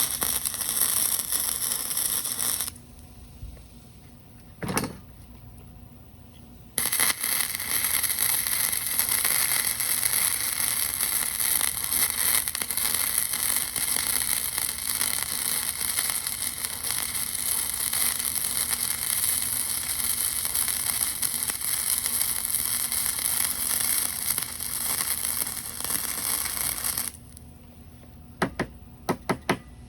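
Electric arc welding, its arc crackling and hissing in a short burst and then in one long bead of about twenty seconds. A few sharp clicks follow near the end.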